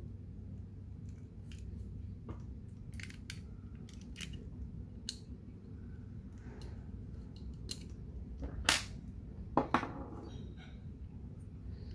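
Small plastic and metal pistol parts of a disassembled Colt 1911 CO2 BB gun clicking and tapping as they are handled and worked loose from the frame, with two louder sharp clacks about three quarters of the way through, over a steady low hum.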